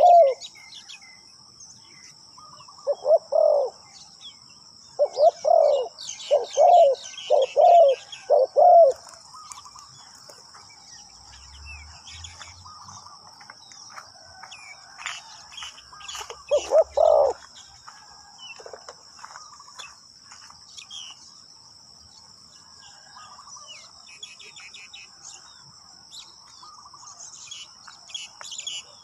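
Spotted dove cooing: a series of deep coos in the first nine seconds, five of them in quick succession, then one more about 17 seconds in. Small birds chirp faintly in between over a steady high whine.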